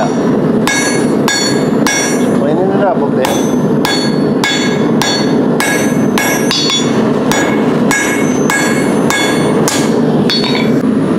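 Rounding hammer striking hot railroad-spike steel on an anvil in a steady rhythm, just under two blows a second, each blow with a bright ring. This is the stem of a forged leaf being drawn out. A steady low rushing noise runs underneath.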